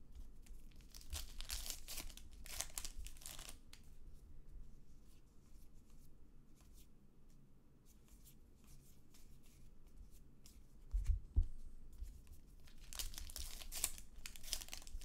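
Baseball trading cards being handled and slid across one another, in a few bursts of dry papery swishing with small clicks between them. A couple of dull thumps come about two-thirds of the way through.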